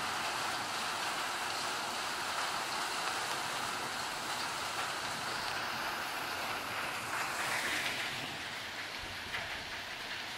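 Heavy rain pouring down, a steady dense hiss that eases slightly near the end.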